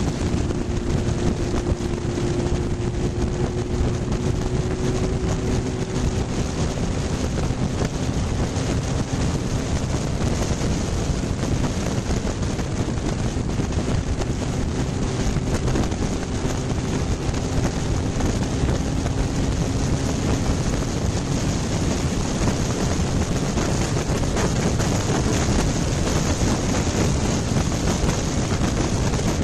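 Wind rushing over a camera mounted on a moving motorcycle, with the engine's hum faintly audible underneath, its pitch drifting slightly.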